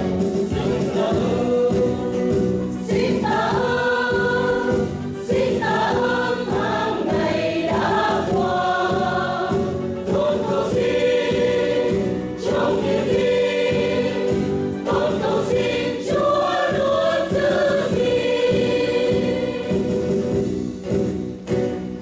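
Church choir singing a Vietnamese Catholic hymn in sustained, full chords. The singing dies away near the end.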